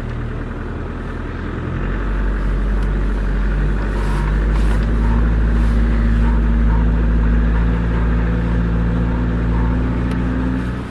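An engine running steadily, picking up revs about two seconds in and holding there, then cutting off abruptly.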